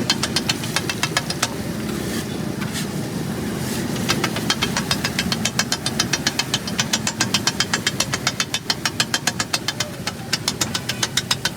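Metal spatulas clacking fast and evenly on a flat iron griddle, about eight strikes a second, as egg patty mixture is chopped and worked on the hot griddle. The strikes thin out briefly about two seconds in, then run densely again, over a steady low rumble of street noise.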